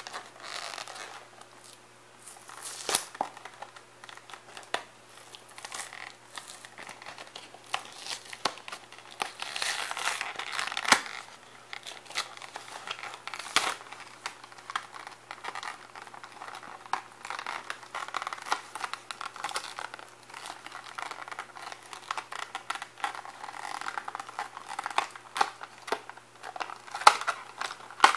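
Clear plastic blister pack and card backing of a die-cast toy car being torn open and crinkled, a steady irregular crackling broken by several sharp plastic snaps.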